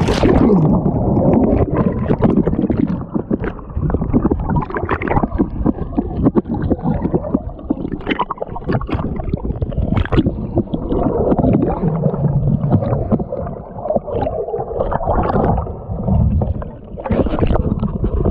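Splash as a kayak angler goes overboard into the sea, then muffled underwater churning and gurgling of seawater heard from below the surface, full of sharp knocks and thuds as he struggles in the water beside the kayak.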